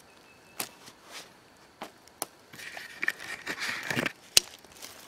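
Footsteps crunching on dry dirt and gravel, a few scattered steps at first, then steady walking from about halfway through, with one sharp knock near the end.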